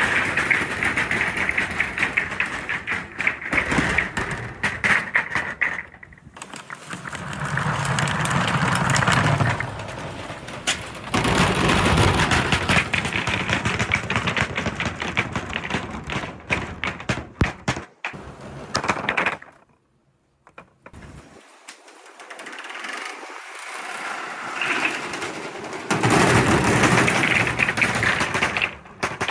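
Many balls rolling and clattering down a wooden marble-run track, a dense rattle of clicks and knocks. It eases off twice, falls almost silent for a moment about two-thirds of the way through, then surges again near the end.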